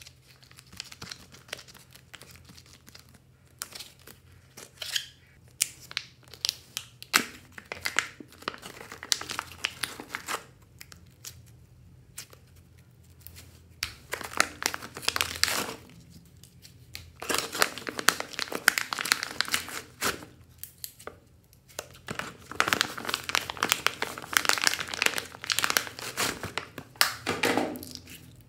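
Plastic-and-foil slime pouch crinkling and rustling as it is handled and squeezed, in irregular bursts with short pauses between.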